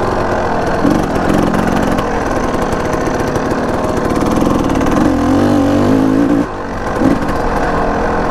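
Enduro motorcycle engine running under way, its revs rising and falling with the throttle. The engine note drops off briefly about six and a half seconds in, then picks up again.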